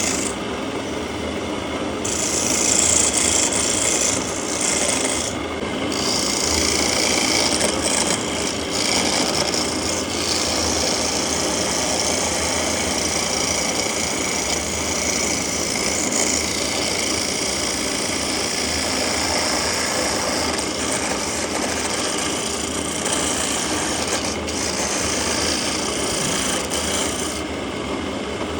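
A tool abrading wood: a steady, continuous rasping, broken briefly a few times in the first six seconds.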